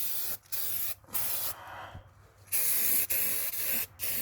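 Aerosol spray paint can spraying in a series of short hissing bursts, with a longer burst of over a second near the end.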